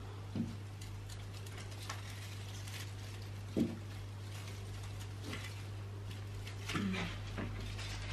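Light rustling and scattered ticks from handling a tangled twig garland, with two short soft knocks about half a second in and at three and a half seconds, over a steady low hum.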